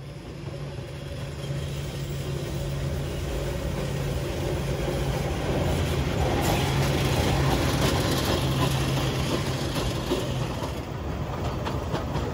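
Kurobe Gorge Railway trolley train, an electric locomotive hauling passenger cars, passing close by on narrow-gauge track: the rumble and clatter of wheels on rail, loudest in the middle, over a steady low hum that fades out about ten seconds in.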